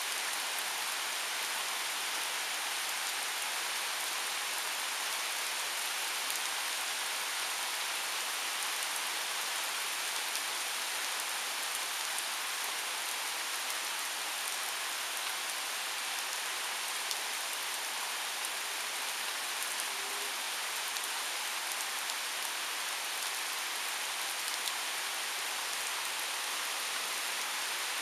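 Thunderstorm rain falling steadily on trees and lawn, an even hiss with a few scattered drop ticks.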